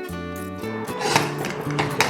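Instrumental background music: held bass notes change every fraction of a second, with percussive hits from about a second in.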